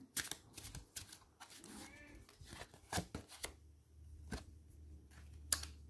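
Tarot cards being handled: a scattering of soft card clicks and taps with quiet gaps between them.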